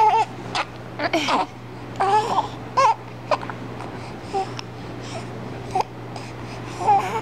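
Young baby hiccuping and making little squeaks and babbling sounds: about eight short sounds at uneven intervals, some with a brief falling pitch.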